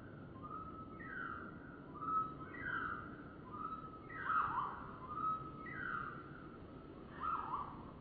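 Bird song played slowed down: a held note followed by a falling slur, repeated about five times, roughly every one and a half seconds.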